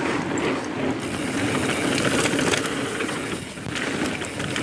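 Transition Spur 29er mountain bike coasting downhill on a dirt trail: its rear freehub ratchet buzzes with rapid ticking over the crunch of the tyres on dirt and gravel.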